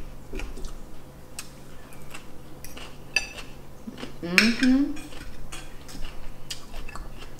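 Cutlery clinking and scraping on a plate during eating, in scattered sharp clicks. About four seconds in comes a short rising hummed "mmm".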